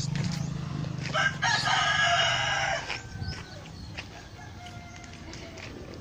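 A rooster crows once, a single long call of about a second and a half, over a steady low hum.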